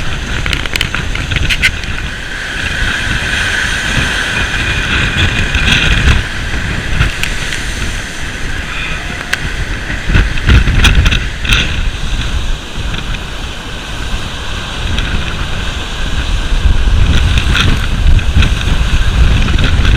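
Rough sea: waves surging and breaking, with wind buffeting the microphone. The heaviest surges come about halfway through and again near the end.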